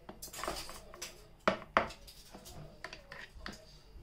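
Rice paddle scraping and tapping against a plastic portion-control plate divider and plate as cooked rice is pressed into a compartment. Two sharp knocks come about a second and a half in, followed by lighter taps.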